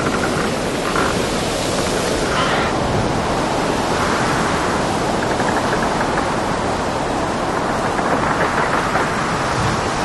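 Storm at sea heard from aboard a boat: a steady, loud rush of wind and breaking waves. A faint rapid rattle joins in about halfway through.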